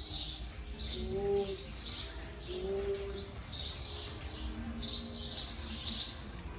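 Birds chirping, a short high chirp repeated about twice a second, with some lower cooing notes in between.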